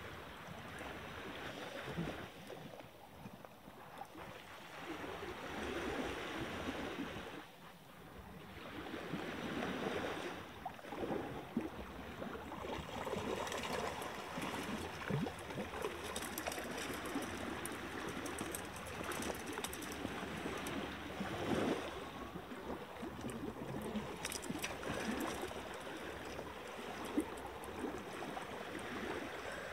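Small waves lapping and gurgling against a rocky shoreline, a continuous uneven watery wash, with scattered short crackly splashes in the second half.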